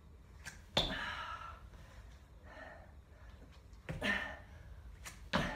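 A woman breathing hard in sharp gasps and exhalations during a high-intensity squat-jump exercise, with a few sudden thumps as she moves on the mat, about four spread through.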